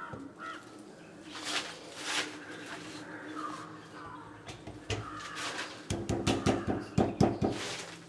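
A ceramic vessel basin being shifted by hand on a granite countertop while it is centred on its silicone bed: scattered light knocks and scrapes, coming thick and fast in the last couple of seconds. Faint bird calls in the background.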